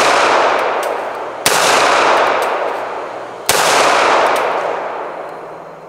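Roberts Defense 1911 pistol fired twice, about two seconds apart, each sharp shot followed by a long rolling echo that fades away; the echo of a shot fired just before is still dying out at the start.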